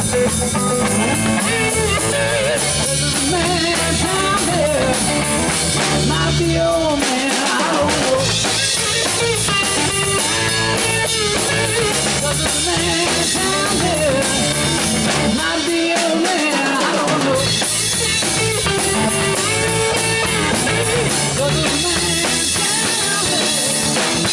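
Live band playing: electric guitar, electric bass and drum kit together, at a steady loud level.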